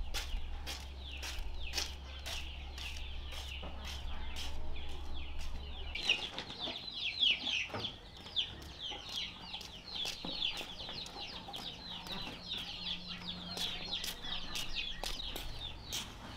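Chickens calling: many short, falling, high-pitched cheeps overlap, busiest from about six seconds in. Footsteps tap along throughout.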